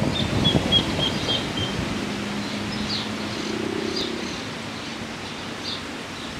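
Outdoor ambience under trees: short bird chirps now and then over a steady rush of wind and rustling leaves, with a faint low hum in the middle.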